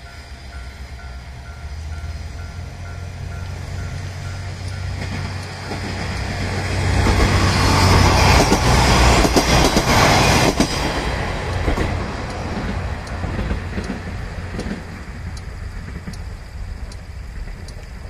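KiHa 47 diesel railcar passing over a level crossing: a low diesel rumble builds, with loud wheel clickety-clack over the rail joints about eight to eleven seconds in, then fades as the train goes away. A level-crossing warning bell rings at the start.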